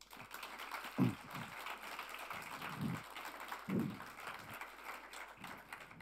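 Audience applauding: a dense clatter of many hands clapping, which cuts off abruptly at the end.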